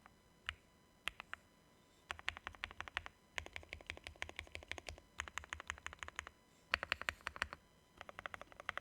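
Typing on a fully foamed JRIS65 mechanical keyboard with Gateron Oil King linear switches and PBT keycaps: a few single keystrokes, then runs of fast typing broken by short pauses.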